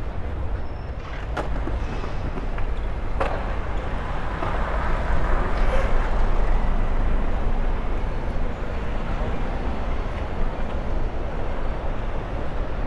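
City street ambience: a steady rumble of traffic, with a few short clicks in the first few seconds.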